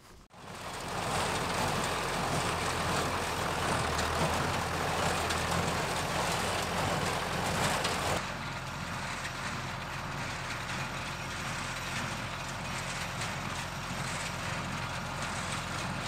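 Tractor engine pulling a New Holland wire-tie square baler that is running and baling hay: a steady mechanical din with a low engine drone. About eight seconds in it turns quieter and duller.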